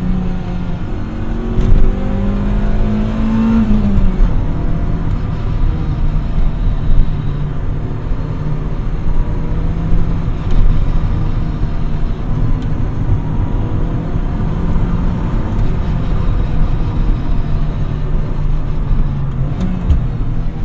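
Lotus Elise's four-cylinder engine pulling on the open road, heard from inside the cabin over steady road and wind rumble. Its note climbs for about two seconds, drops sharply about four seconds in, then holds steady at a cruise.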